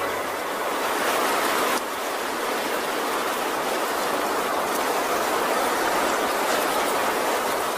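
Steady rushing noise with no tune or pitch, a background ambience sound effect. Its higher part drops a little about two seconds in.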